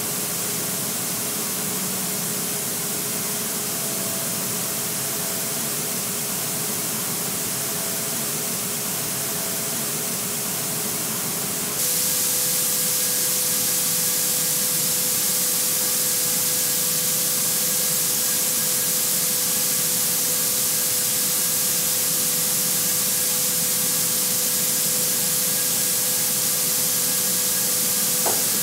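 Steady hiss of a car-body paint booth, with painting robots spraying and booth air flowing, over a faint steady hum. About twelve seconds in the sound switches abruptly to a louder, brighter hiss with a slightly higher hum.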